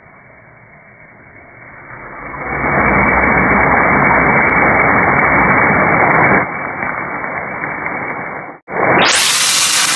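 Beef cubes and onions sizzling in a frying pan, the sizzle swelling to a loud steady hiss about two and a half seconds in as the glass lid comes off. It drops back a little, cuts out for a moment near the end, and returns as a brighter hiss.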